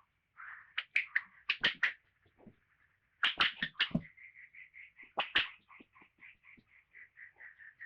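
A young animal giving a rapid string of short, high-pitched cries, about four or five a second, broken by several bursts of sharp slapping or scuffling sounds in the first half.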